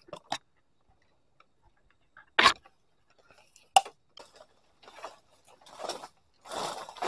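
Scattered knocks and clicks of a person climbing and shifting in a tree, two sharper knocks about two and a half and four seconds in, then rustling near the end.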